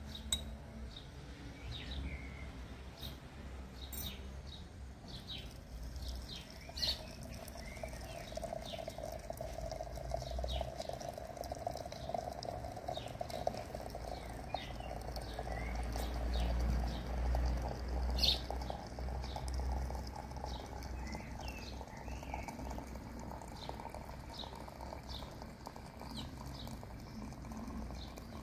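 Water running from a samovar's tap into a porcelain teapot, a steady stream from about 7 seconds in until about 22 seconds, its pitch rising slightly. Birds chirp throughout.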